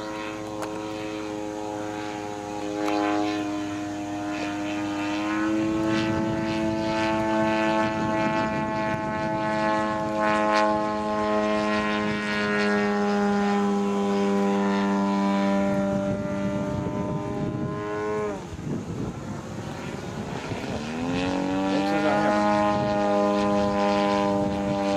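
Radio-controlled model airplane's motor and propeller running in flight, a steady buzzing note. It steps up in pitch about five seconds in, drops away sharply near eighteen seconds and climbs back to pitch a few seconds later.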